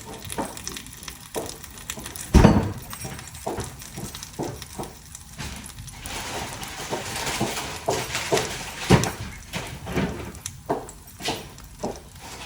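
Kitchen handling noises: a run of clinks and knocks of dishes and utensils, with one heavy thump about two seconds in and a soft hiss for a few seconds in the middle.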